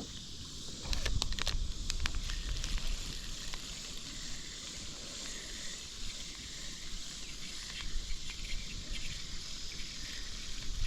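Steady chorus of insects, crickets or similar, chirping in the background, with a few light clicks about a second in.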